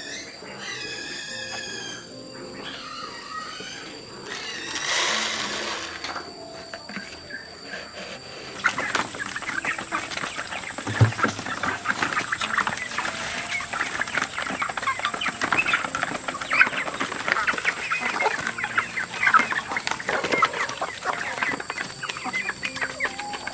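Chickens clucking: a few scattered calls at first, then a busy, dense stretch of short clucks from about nine seconds in. A brief rush of noise comes around five seconds in.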